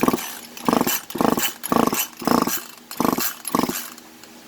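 Dog barking in a quick series of short barks, about two a second, stopping shortly before the end.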